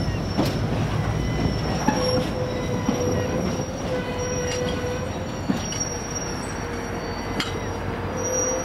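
Ore train's box wagons rolling slowly on a curve, the wheels squealing in a steady high pitch over a low rumble, with a few sharp clicks as the wheels cross rail joints and points.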